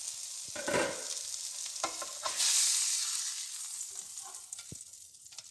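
Salmon fillet frying in butter in a pan: a steady sizzle with a few sharp clicks of a utensil against the pan. The sizzle swells about two seconds in, then fades away near the end.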